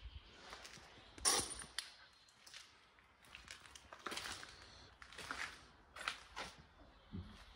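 Footsteps crunching on a debris-strewn concrete floor, irregular and fairly quiet, with one sharper, louder knock about a second in.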